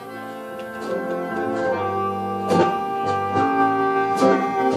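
Recorded music played back through a pair of Audiopax 88 valve power amplifiers, with pitched notes and regular strong accents. The level rises over about the first second as the volume is turned up on the passive preamp.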